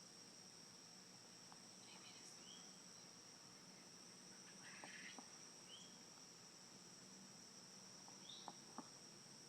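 Faint sounds of a sick chicken gasping for air: short rising squeaks about every two to three seconds, with a few soft clicks, over a steady high whine.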